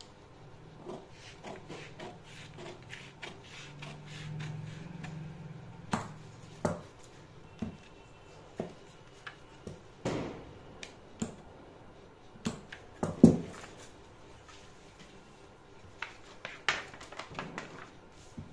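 Tailoring scissors cutting out a pattern panel: irregular sharp snips and clicks with light rustling of the material being handled.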